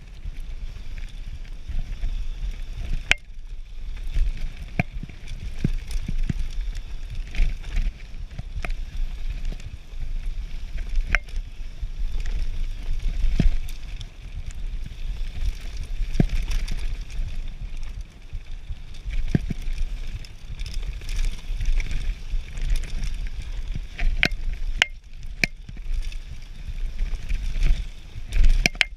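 Radon Slide Carbon enduro mountain bike running fast down a dirt trail: a continuous low rumble of tyres on dirt, with many sharp clicks and knocks as the bike rattles over bumps and roots.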